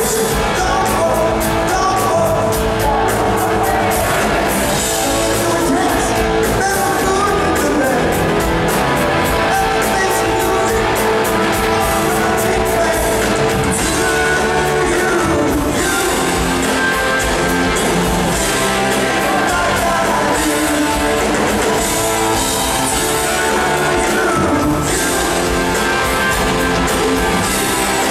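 Live rock band playing in a large hall: electric guitars, organ and drums, with a sung lead vocal over a steady beat.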